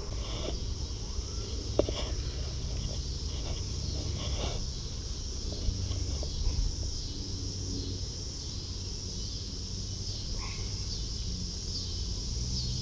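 A steady, high-pitched chorus of insects, over a low rumble on the microphone, with a couple of sharp clicks from handling the fishing rod, one about two seconds in and one near the middle.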